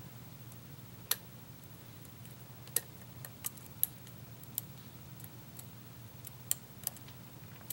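Lock pick and tension wrench working the pins of a lock, giving about ten small, sharp clicks at uneven intervals, bunched in the middle, as the pins are nudged up a little at a time. A faint low hum runs underneath.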